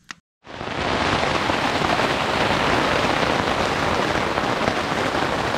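Rain falling steadily on the tent, heard from inside it. It starts abruptly about half a second in and stays loud and even.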